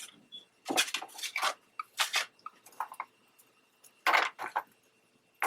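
Small craft supplies being rummaged through on a table: a series of light clicks, taps and rustles as items are picked up and moved aside.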